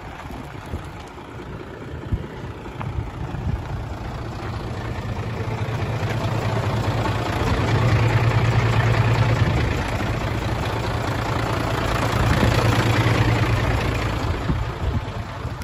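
Hino Ranger dump truck's J08C inline-six diesel engine idling steadily. It grows louder through the middle and eases off near the end.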